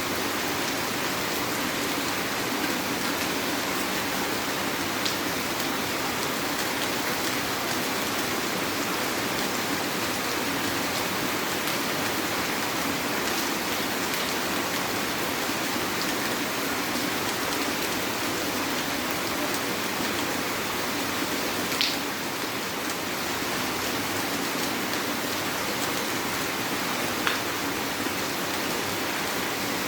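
Heavy rain falling in a steady, even hiss. A few sharper taps of drops stand out now and then, the loudest about 22 seconds in.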